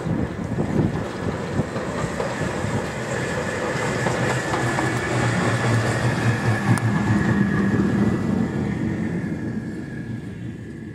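Class 09 diesel shunter running light engine past. Its engine drone grows louder to a peak past the middle, then fades away. Wind buffets the microphone at the start.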